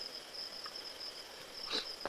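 Insects chirping in a steady high trill, with a brief knock near the end.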